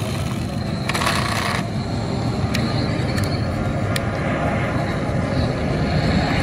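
Handling of a die-cast toy car: a short scrape about a second in and a few sharp small clicks, over a steady low rumble.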